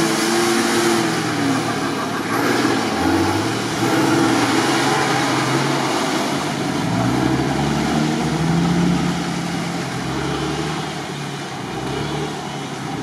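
Nissan Patrol Y61's engine revving up and down in several surges under load as it tries to climb a near-vertical muddy bank out of a swamp.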